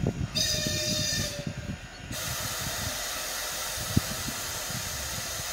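Steam locomotive sounding a short whistle blast of about a second, then blowing off steam in a steady loud hiss from about two seconds in, with a single sharp clank near four seconds in.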